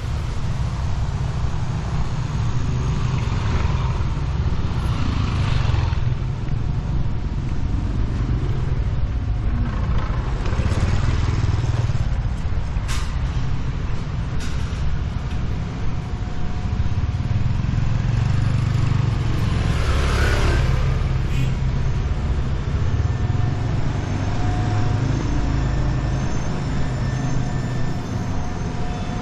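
Street traffic: vehicles pass close by one after another, swelling and fading a few seconds in, around ten seconds in and about twenty seconds in, over a steady low rumble.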